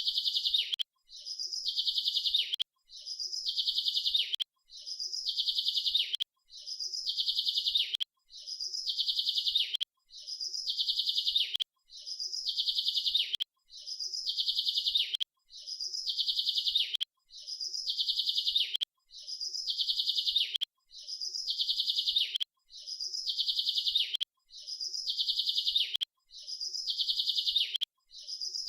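A rapid, high-pitched bird trill, each one about one and a half seconds long, growing louder and then stopping abruptly. The trills repeat identically about once every two seconds with short silent gaps: one short recording looped over and over.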